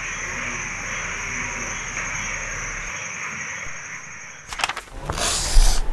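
Night ambience sound effect: a steady high trill over a hiss. About four and a half seconds in come a few sharp clicks, then a loud whoosh near the end.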